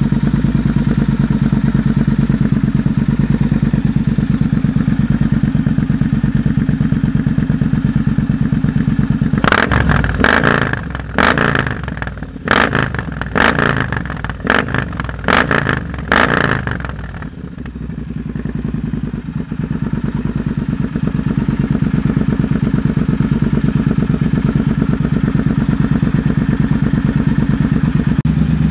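Triumph Bonneville Speedmaster's parallel-twin engine running very loud through a Zard slip-on exhaust with the silencer removed. It idles with a steady pulsing beat, then from about nine seconds in is blipped hard on the throttle in a quick run of sharp revs for some seven seconds, before dropping back to idle.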